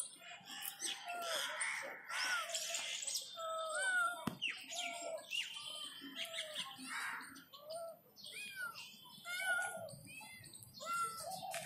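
Kittens mewing over and over in short, rising-and-falling calls, with birds chirping in the background.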